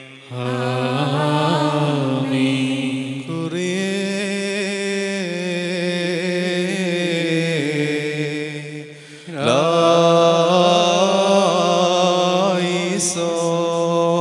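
Syriac liturgical chant sung in slow, long-held melismatic phrases. It breaks off briefly about nine seconds in, then resumes louder.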